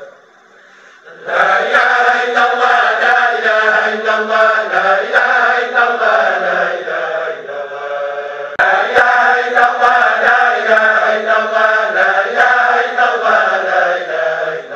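Several voices chanting Sufi dhikr together in a rhythmic, repeated chant. It starts about a second in, and there is a sudden jump in the sound about two-thirds through, like an edit in the recording.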